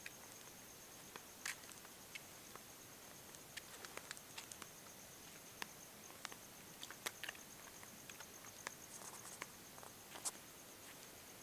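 Faint, steady high-pitched insect trill, finely pulsed without a break, with scattered soft clicks and ticks over a low hiss.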